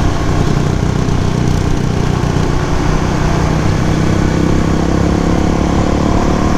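Suzuki DR-Z400 supermoto's single-cylinder four-stroke engine running steadily under way, its pitch creeping up slightly in the second half.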